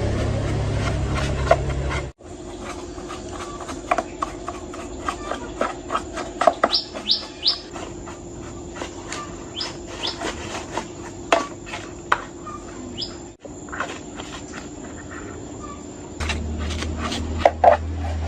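A loud low hum for about two seconds that cuts off abruptly. Then scattered light clicks and taps over a faint steady hum, with a few short high bird chirps. The low hum returns near the end.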